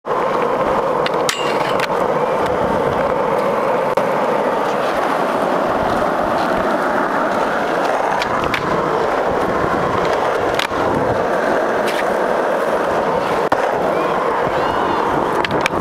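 Skateboard wheels rolling over asphalt, a steady rumble, broken half a dozen times by sharp clacks of the boards.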